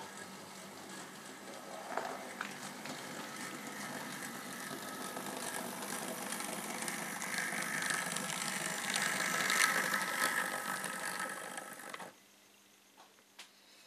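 Model railway steam tank locomotive and its coaches running along the track towards the microphone, the motor and wheels getting louder with a few clicks, then stopping abruptly about twelve seconds in as the train halts; a few faint ticks follow.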